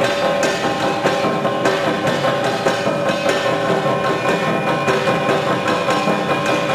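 Recorded Philippine folk dance music played by a rondalla string ensemble, with several held tones over a steady knocking beat about twice a second.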